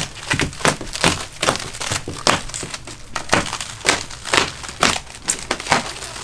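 Clear plastic stretch wrap crinkling and crackling as it is pulled and peeled off a large cardboard shipping box, in irregular quick crackles.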